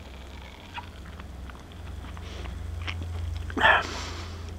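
A man drinking beer from a glass: quiet sips and swallows with small mouth clicks, then a short breath out about three and a half seconds in, over a steady low hum.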